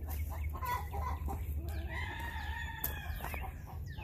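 Chickens clucking, with a rooster crowing once in a long, held call from a little under two seconds in.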